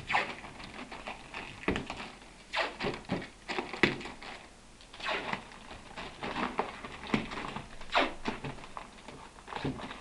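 A roll of white tape being pulled off and torn into strips, and pressed down onto paper wrapping, in irregular rips, rustles and taps.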